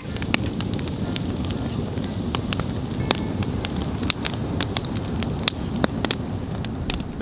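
Wood fire burning, crackling with many irregular sharp pops over a steady low rush.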